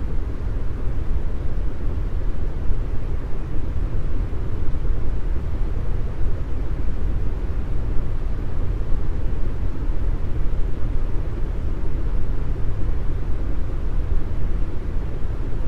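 Deep brown noise: a steady, unbroken rushing hiss with its weight in the bass and little treble.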